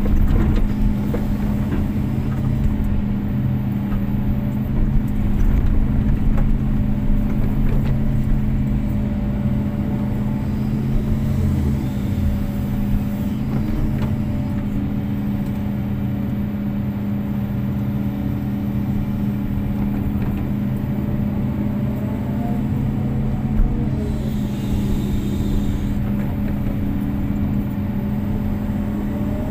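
Kobelco SK250-8 excavator's diesel engine running at a steady pitch, heard from the operator's cab while the arm and bucket dig. A fainter, higher tone rises and falls now and then over the engine.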